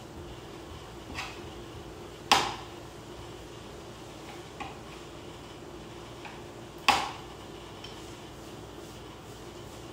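A utensil knocking against a pan as shredded pork floss is stirred dry over low heat: two sharp clanks about four and a half seconds apart, with a few lighter taps, over a steady low hum.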